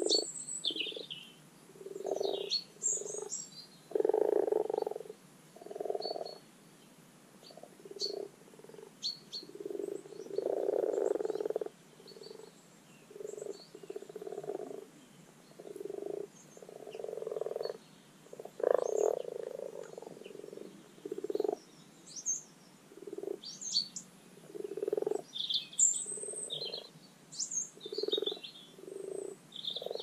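Common frogs (Rana temporaria) calling in chorus with their spring spawning call: short, low croaks repeated irregularly, one or two every second or so, some longer and some overlapping.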